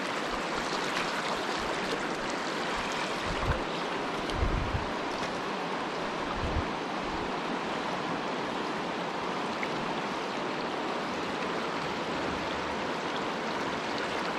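Fast, high river water rushing steadily over a rocky riffle. A few brief low thumps come about three to seven seconds in.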